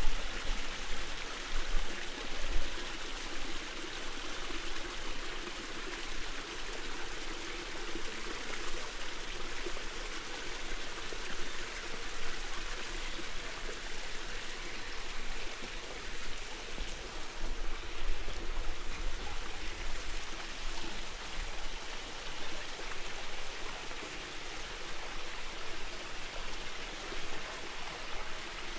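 Running water, a steady stream-like rush and trickle, with some low rumble underneath.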